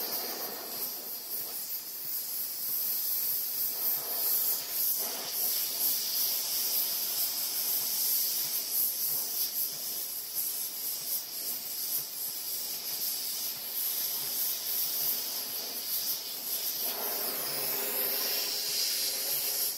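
Gas torch flame hissing steadily as it heats a seized, broken bolt in a cast-iron engine block; the hiss grows a little fuller near the end.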